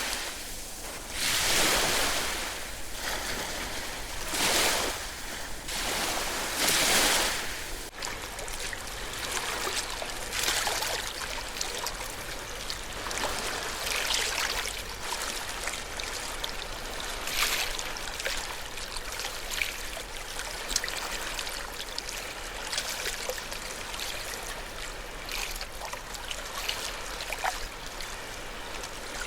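Ocean waves breaking and washing in, three surges in the first several seconds. About eight seconds in the sound changes abruptly to gentler water lapping and trickling, with small splashes.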